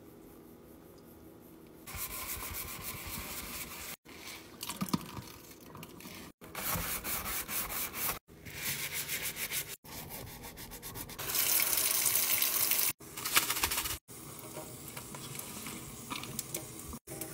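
A soapy stainless steel sink being scrubbed by hand, a rough rubbing over the metal in fast strokes. It starts about two seconds in and breaks off abruptly several times.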